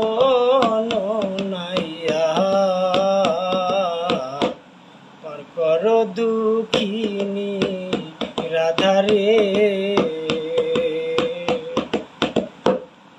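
Man singing a Bengali folk song, unaccompanied, in long held and wavering notes, breaking off for about a second midway and stopping near the end. A quick, steady train of sharp clicks keeps time under the voice.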